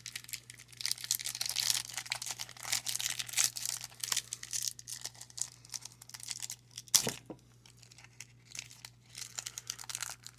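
Trading card pack wrapper being crinkled and torn open by hand, in dense crackling spells, with a single sharp click about seven seconds in.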